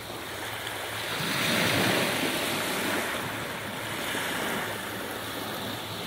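Sea waves washing onto the shore: one wave swells to its loudest about two seconds in and then eases off, with a smaller swell following.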